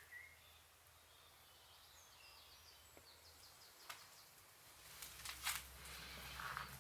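Near silence, with faint bird chirps, two small clicks and a light rustle near the end.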